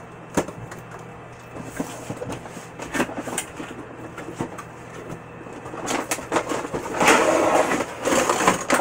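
Packaging being handled: a few light knocks as a cardboard box is set down and opened, then, from about six seconds in, a couple of seconds of loud crinkling and rustling as a clear plastic package is pulled out of the box.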